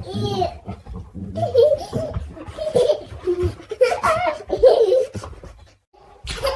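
Laughter in a string of short bursts, breaking off briefly near the end before starting again.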